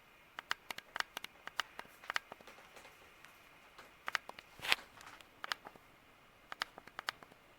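Faint steady running of a Palm Air ceiling fan at medium speed, with many irregular sharp clicks and ticks over it and one brief, louder scuff a little past the middle.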